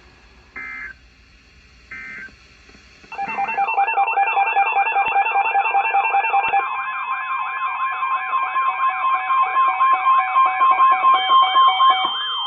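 Emergency Alert System signalling: two brief digital data bursts, then from about three seconds in a loud warbling alarm tone with steady and pulsing alert tones layered over it. A further steady tone joins a few seconds later.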